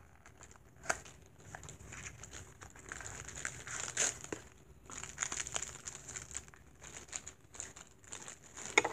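Plastic wrapping of a miniature toy package crinkling and tearing as it is opened by hand, in irregular crackles. There is a sharper snap about a second in and a cluster of louder clicks near the end.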